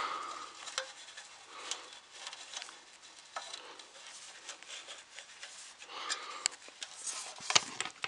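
Light handling noises: rubbing, soft taps and small clicks as the black rear filter pad is pressed back into a space heater, with a sharper knock near the end.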